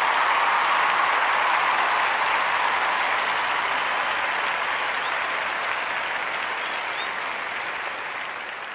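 Crowd applause: steady clapping that slowly fades out toward the end.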